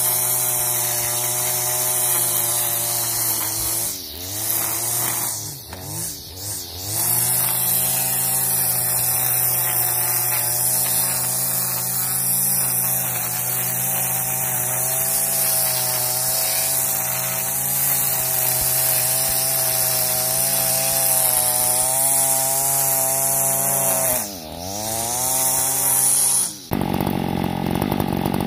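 Stihl FS 94 R two-stroke string trimmer edging grass along a concrete sidewalk, running steadily at high throttle. The engine pitch drops and climbs back as the throttle is eased off about 4 s in, twice around 6 s and again near the end. Just before the end the sound changes abruptly.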